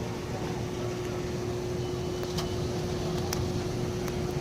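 Steady vehicle noise with a low rumble and a faint constant hum, like a car running or passing traffic; a sharp click at the very end.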